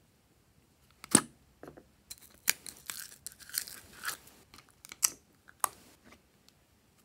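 A plastic slime tub popped open with a sharp click about a second in, then a run of short sticky, crackly sounds as pink glitter slime is pulled out of the tub, with two more sharp clicks near the end as it is dropped into the dish.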